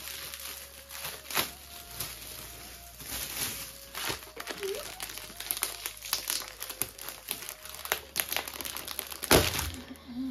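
Plastic packaging and foil gift wrap crinkling and crackling as a packaged sari is handled and pulled from its wrapper, in irregular crackles with a sharper, louder crinkle near the end.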